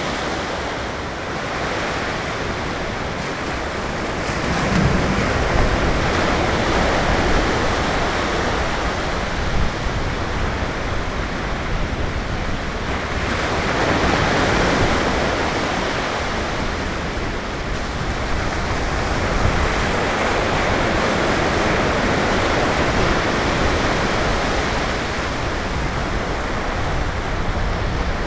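Ocean surf: waves breaking and washing up the beach in a continuous hiss that swells and eases every few seconds.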